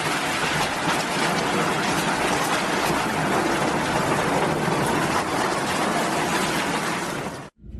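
Storm noise: a loud, steady rushing hiss of wind and rain that cuts off abruptly near the end.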